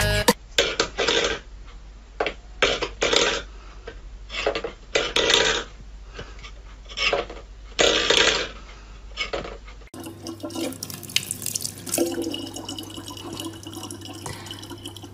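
About a dozen short, splashy noisy bursts over ten seconds, then a sudden cut to a tap running steadily with a low hum under it.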